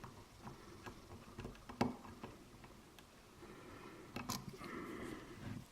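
Faint handling of lock-picking tools in a DOM IX 5 dimple lock: a sharp small click a little under two seconds in, another a little after four, with light scraping between.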